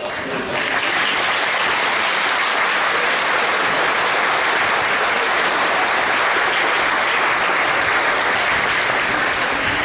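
Audience applauding: steady clapping that builds about half a second in and begins to ease off near the end.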